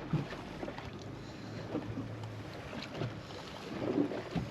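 Steady wind and water noise on a boat at sea, with a faint low hum and a few small knocks.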